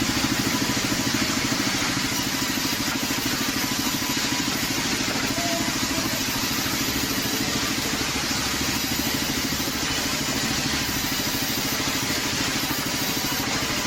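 Plywood-cutting machine running steadily, with a fast, even, engine-like pulsing under a broad hiss.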